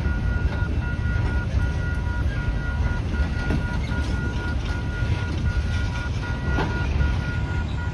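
Freight cars rolling past through a grade crossing with a steady low rumble, while the crossing's Western-Cullen-Hayes bell rings in a steady, evenly repeating tone.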